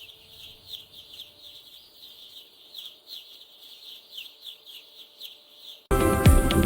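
Many baby chicks peeping: short, high, falling peeps, several a second, overlapping. Loud music comes in near the end.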